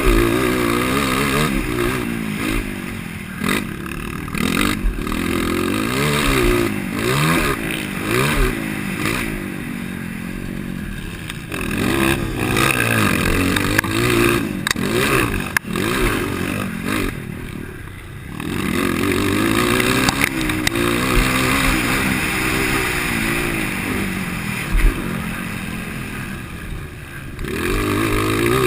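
A 230 cc motocross bike racing, its engine revving up and falling back over and over as the throttle opens and closes through the track. The throttle closes briefly a few times, near 12 s, 18 s and 27 s. The engine is stock apart from a DORE exhaust bend and tip.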